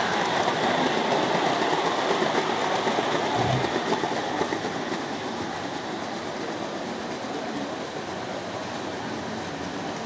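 O gauge tinplate model train rattling along tinplate track, loudest over the first few seconds as its coaches pass close by, then fading as it runs away.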